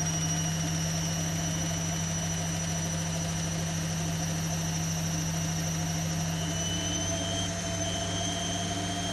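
Zanussi Lindo 100 washing machine spinning its drum at high speed in the final spin: a steady motor hum under high whining tones that creep slowly up in pitch as the drum gathers speed.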